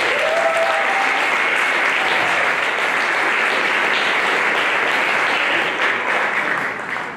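Audience applauding steadily, with a few faint voices cheering near the start, dying down near the end.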